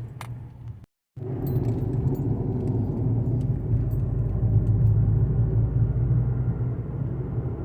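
Nissan Rogue driving, heard from inside the cabin: steady road noise with a low drone, the rumble heard while driving that is being diagnosed. It starts after a short break in the audio about a second in.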